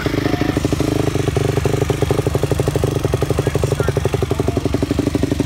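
2004 Yamaha YZ250F's 250 cc four-stroke single-cylinder engine idling steadily through an aftermarket exhaust.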